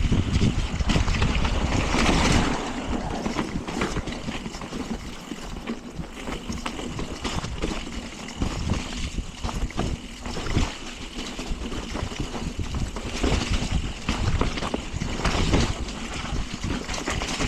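Mountain bike ridden over a wet, flooded forest trail: tyres rolling and splashing through water, with frequent knocks and rattles from the bike over rough ground and wind buffeting the microphone. Loudest in the first couple of seconds.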